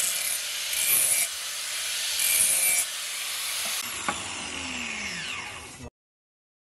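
Angle grinder with an abrasive disc grinding the steel edge of a curved knife blade, in strokes that swell and ease. Just under four seconds in it is switched off and its whine falls in pitch as the disc spins down, until the sound cuts off abruptly at about six seconds.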